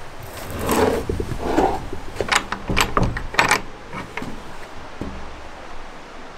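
Old wooden plank door of a log cabin being handled: two scraping rubs near the start, then a quick run of sharp metallic clicks and rattles from its iron latch and hinges between about two and three and a half seconds in.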